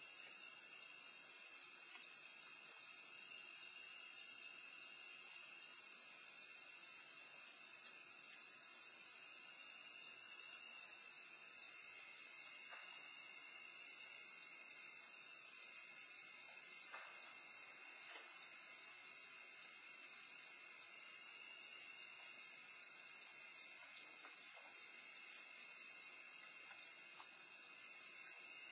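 A steady, high-pitched chorus of night insects chirring without a break.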